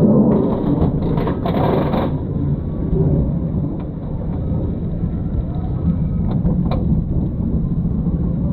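Gerstlauer bobsled coaster car being hauled up its chain lift hill: a steady low clattering rumble of the lift chain under the car, with denser rattling in the first two seconds as it starts the climb.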